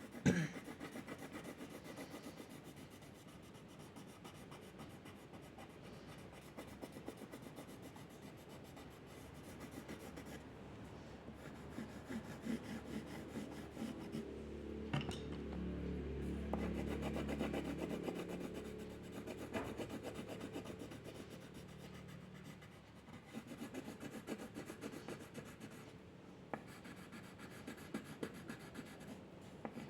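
Drawing strokes scratching and rubbing on paper. A low hum swells and fades around the middle.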